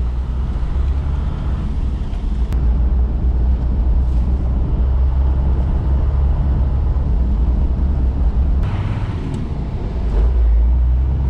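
Toyota Land Cruiser HJ61's 12H-T turbo-diesel straight-six running as the truck is driven to warm it up after a coolant refill. It is a steady low rumble, and the sound shifts about eight and a half seconds in.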